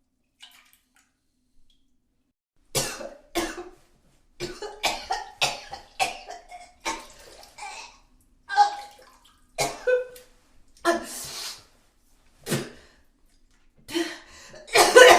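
A person retching and vomiting: a string of heaving, gagging bursts with liquid splattering, starting about three seconds in after near silence and loudest near the end.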